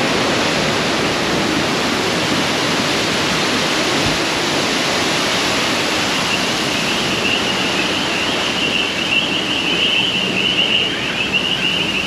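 Waterfalls pouring and water rushing around a river-rapids raft: a loud, steady rush of water. About halfway a high, wavering whistle-like tone joins it.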